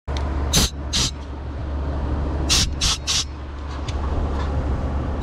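Five short hissing bursts over a steady low hum: two about a second apart near the start, then three in quick succession about halfway through.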